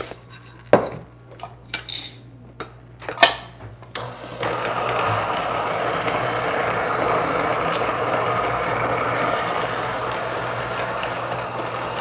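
A few clicks and knocks as coffee beans are tipped into a Niche Zero grinder. About four seconds in, the grinder starts and runs steadily, grinding the single dose.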